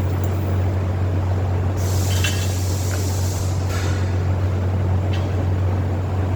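Arc welding machine humming steadily, with a hissing, crackling burst of arc noise lasting a little under two seconds starting about two seconds in, and a brief hiss just after.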